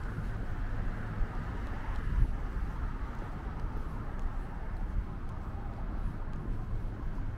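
City street traffic: cars passing on a multi-lane road, a steady rumble of engines and tyres. There is a brief low bump about two seconds in.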